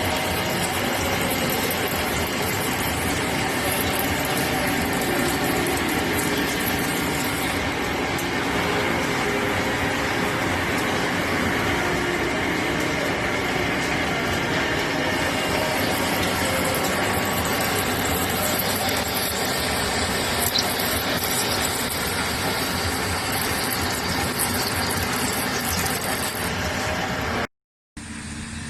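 Metal lathe running while cutting a thread: a steady, dense machine noise. About 27 seconds in it cuts out abruptly and is followed by a quieter, steadier machine sound.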